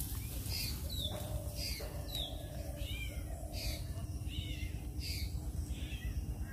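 Animal calls: a series of short, high notes falling in pitch, repeated about once or twice a second, over a steady low rumble.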